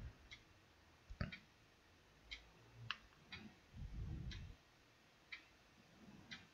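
Faint computer mouse and keyboard clicks: about ten short, irregularly spaced clicks over near silence.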